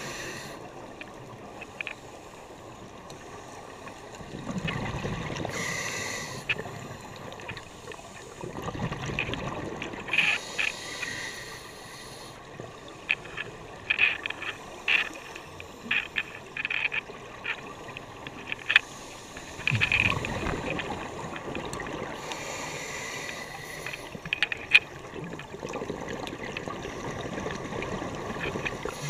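Underwater sound of a scuba diver's breathing: the exhaled bubbles from the regulator rumble up every several seconds, with many short sharp clicks and crackles in between.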